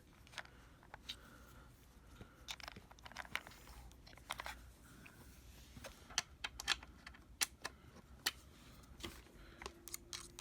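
Scattered light clicks and taps of a screwdriver and the vacuum cleaner's plastic housing being handled while the housing is unscrewed and taken apart.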